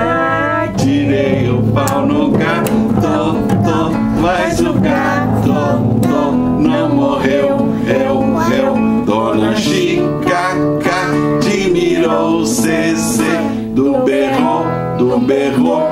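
Acoustic guitar being played, with voices singing along.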